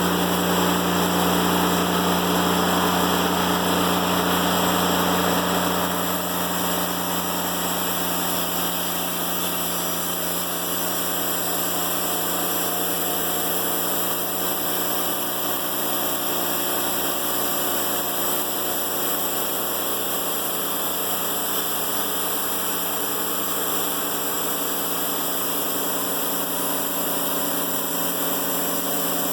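TimberKing 1400 band sawmill running steadily at constant speed while its band blade makes a skim cut through a black locust log. The sound eases slightly about six seconds in.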